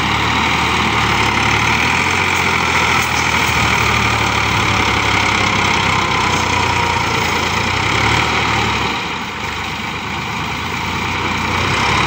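Farm tractor's diesel engine running hard under load as it tries to pull a loaded sand trolley out of soft sand where its rear wheels are dug in. The engine eases off about nine seconds in and picks up again near the end.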